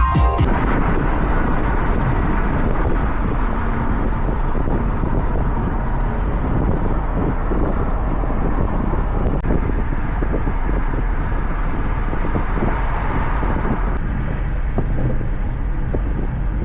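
Car driving at steady speed: a continuous rumble of road and engine noise.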